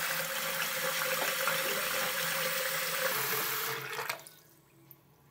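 Bathroom basin tap running into a clogged sink, the stream splashing into water pooled over the slow drain; the tap is shut off about four seconds in and the rush stops.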